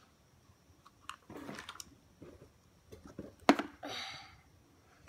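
A child handling Play-Doh and its plastic tub: small clicks and rustles as green dough is dug out of the pot and squeezed, with one sharp plastic knock about three and a half seconds in, the loudest sound, followed by a brief rustle.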